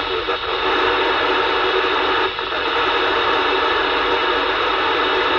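Steady radio static from a handheld PMR446 radio's speaker, with its squelch open on a weak, distant signal buried in the hiss.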